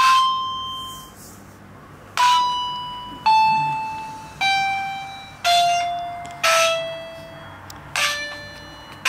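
Toy piano keys of a children's musical book, played one key at a time: seven bright chiming notes that each die away, stepping down a major scale about one note a second.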